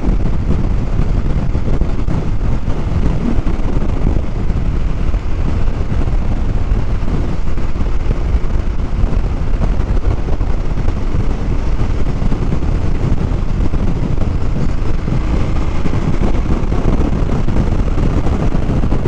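Motorcycle riding at steady road speed: wind rushing over the helmet-mounted microphone, with the engine running underneath.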